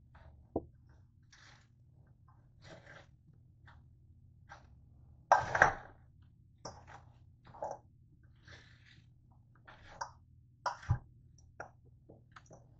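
Metal tongs tossing chopped chicken and partly frozen salad in a stainless steel bowl: scattered scrapes, clicks and soft crunches. A louder clatter comes about five and a half seconds in, and there are sharp knocks of the tongs against the bowl near the start and at about eleven seconds.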